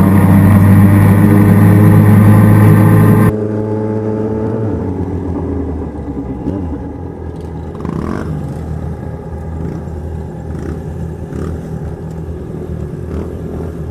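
Motorcycle engines running on the move in a group ride, a steady loud drone that drops suddenly about three seconds in to a quieter, steady engine sound.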